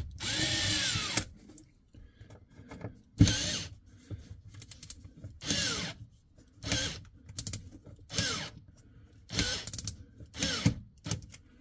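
Small cordless electric screwdriver driving screws through a rubber floor mat into the car's rear panel, in about seven short runs. In each run the motor whirs up and slows down again.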